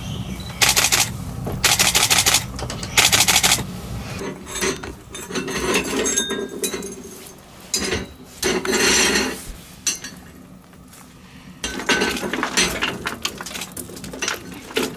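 Several loud noisy bursts in the first few seconds, then metal clinking and clanking from a coal-fired cookstove: the hotplate rings and a metal coal bucket knock together as coal is loaded into the fire.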